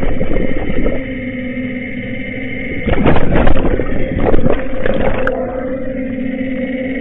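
Underwater excavator-mounted rotary cutter head working the seabed: a steady machine hum with louder spells of rough grinding, one at the start and another from about three to four and a half seconds in.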